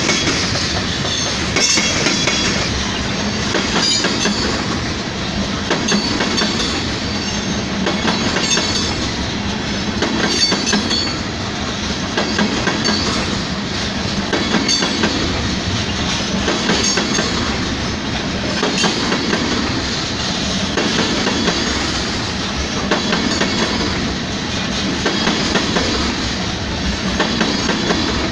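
Freight train of tank cars rolling past: a steady rumble of wheels on rail with continual clickety-clack as the wheels cross the rail joints.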